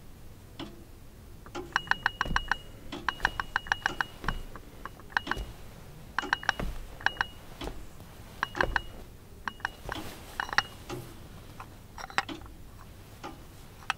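A teaspoon stirring tea in a ceramic mug: quick runs of clinks against the sides with a light ringing of the mug, in bursts of a second or so with short pauses between.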